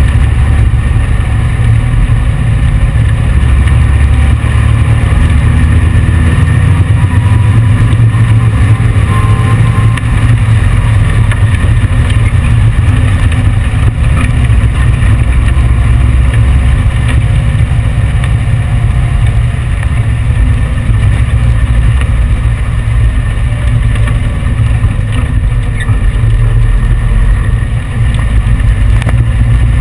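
1835 cc VW air-cooled flat-four engine of a sand rail running loud and steady at cruising speed, close to the on-board microphone.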